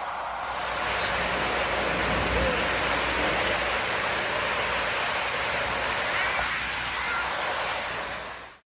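Steady rush of falling and splashing water, with faint distant voices, cutting off abruptly near the end.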